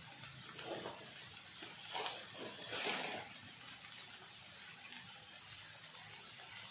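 Crab masala of onion, tomato and spices sizzling quietly in an earthenware pot, a low steady frying noise with a few soft crackles about one, two and three seconds in.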